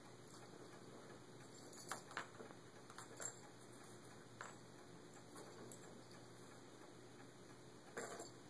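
Cat pawing at a plastic ball-track toy: a few faint, scattered clicks and light rattles of paw and ball against the plastic track, bunched around two and three seconds in and again near the end.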